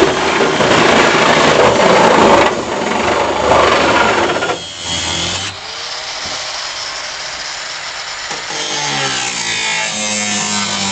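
Angle grinder cutting through the sheet-metal cab of a Toyota pickup. It is loud for the first two and a half seconds, then quieter through the middle, with the pitch shifting as it bites into the metal again near the end.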